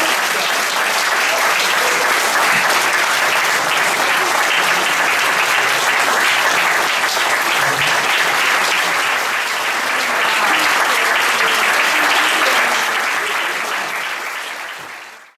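Audience applauding steadily after a tango dance, a dense sound of many hands clapping that fades away near the end.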